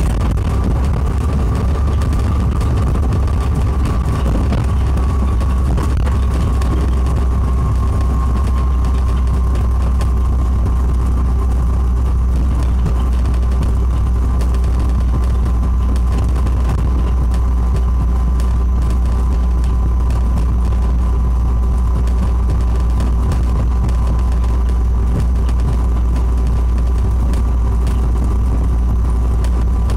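Heathrow ULTra pod, a battery-electric rubber-tyred personal rapid transit car, running along its concrete guideway, heard from inside the cabin: a steady low rumble with a faint, steady electric-motor whine.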